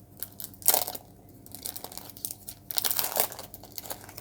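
Foil trading-card pack crinkling and tearing as it is opened by hand, with the cards rustling: a run of sharp crinkles and clicks, loudest just under a second in and again around three seconds in.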